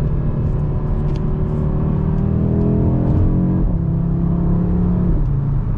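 Stock-exhaust 2024 Audi RS3's turbocharged five-cylinder heard from inside the cabin, accelerating with a rising engine note. About three and a half seconds in, a paddle shift breaks the rise. The note holds steady after it and eases off near the end.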